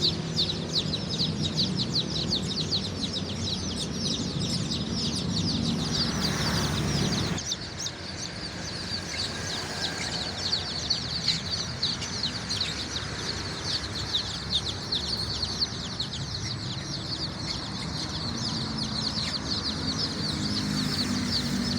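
A large crowd of kampung chicks peeping continuously, many short high chirps overlapping. A low hum underneath stops abruptly about seven seconds in.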